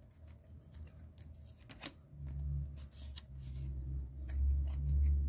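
Trading cards being handled and sorted by hand: scattered quick flicks and rustles of card stock, with a low rumble building up from about two seconds in.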